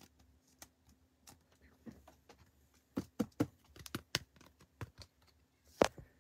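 Light clicks and taps of plastic card holders as a trading card is handled and sleeved. There is a quick cluster of clicks about three seconds in and a sharper click near the end.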